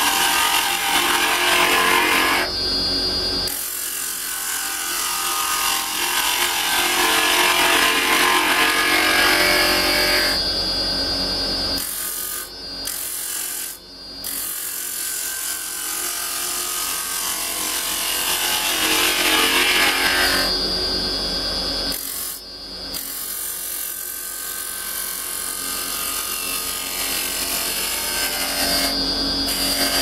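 Carbide-tipped turning tool, held flat, cutting a spinning tanalised softwood blank on a wood lathe: a continuous rough scraping hiss of shavings being peeled off, swelling and fading as the tool traverses the piece, with a few brief breaks where the cut lifts off.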